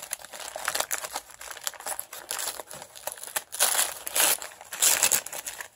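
Gift-wrapping paper crinkling, rustling and tearing as a present is unwrapped by hand, with the loudest crackling bursts a little past halfway.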